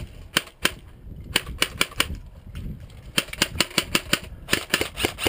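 Airsoft guns firing: a few single shots, then from about three seconds in, rapid strings of sharp cracks at roughly eight shots a second.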